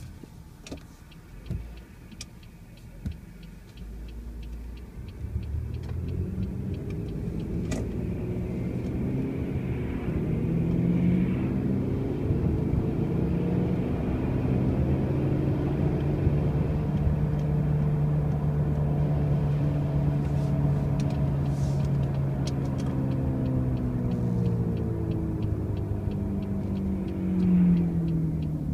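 2005 Pontiac Grand Prix driving with a loud low drone from the running gear. The drone builds and rises in pitch from about five seconds in as the car gathers speed, then holds steady. A few knocks come in the first few seconds. The owner cannot place the noise, since the car already has brand-new wheel bearings and new tires.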